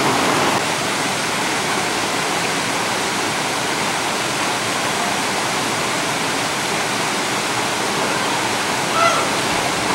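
Steady rush of a tiered waterfall spilling over stone ledges into a pool. A short pitched sound stands out briefly near the end.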